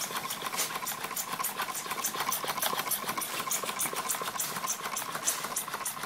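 Homemade Stirling engine prototype running, its linkages ticking steadily at about five ticks a second over a steady hiss of escaping gas.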